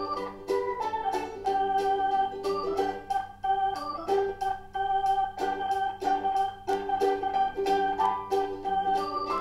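Instrumental background music: an organ-like electronic keyboard playing a melody with chords over a steady light beat.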